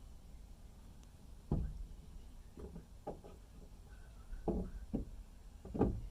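About six irregular knocks and thuds, the loudest about a second and a half in and near the end.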